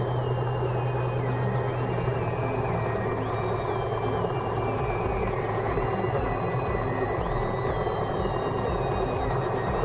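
Cessna's piston engine idling on the ground, a steady propeller-driven drone. A quieter series of high stepped tones repeats every few seconds.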